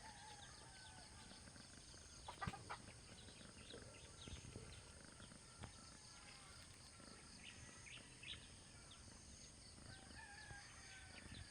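Chickens clucking faintly, with short calls near the start and near the end and a couple of soft knocks in between.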